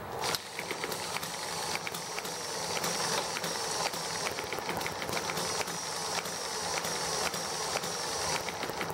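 ET1 small single-cylinder model engine, running on white gas, being hand-started with a pull right at the start and then running free with no generator load. It gives uneven sharp firing clicks, about two or three a second, over a steady hiss.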